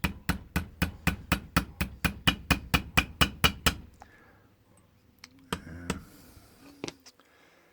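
Rapid, even hammer taps on the steel laminates of a padlock being tapped down over its rivet pins, about four to five a second, stopping a little over halfway through; after that, quieter handling of the parts with a couple of single knocks.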